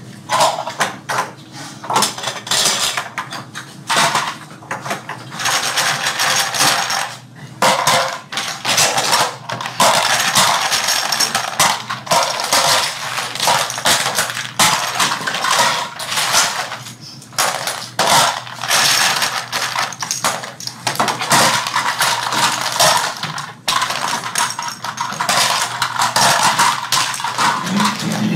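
Small toy airplane parts clicking and clattering on tabletops as several people assemble them by hand. The sound is a continuous busy rattle of many small knocks, with short lulls.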